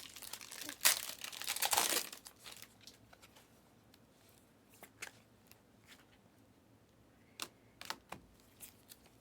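Trading-card pack wrapper being torn open and crinkled for about a second, starting about a second in, followed by a few faint clicks of cards being handled.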